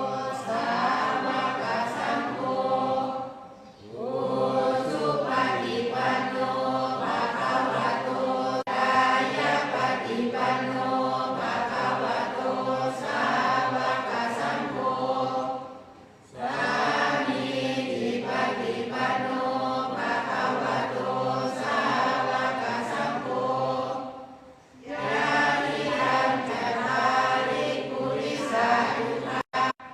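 A group of voices chanting Pali verses in unison, Thai Buddhist evening chanting. It goes in long sustained phrases with brief breath pauses between them.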